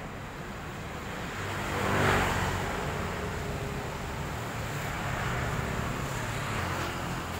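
Street traffic: a motor vehicle passes close by, its engine and tyre noise swelling to the loudest point about two seconds in and then fading, over steady background road noise.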